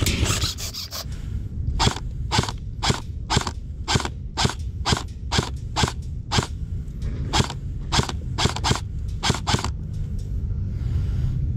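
Airsoft rifle fired in semi-automatic: a steady string of about fifteen sharp shots, roughly two a second, starting about two seconds in and stopping shortly before the end.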